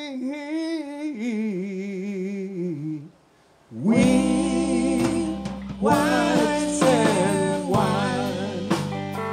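Live electric blues-rock band: a long sung note with vibrato, then a brief half-second dropout a little after three seconds in, after which electric guitar, bass and drums come back in loud.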